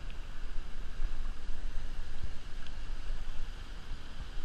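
Wind buffeting the microphone of a kayak-mounted action camera, a low, uneven rumble, over a steady hiss of water.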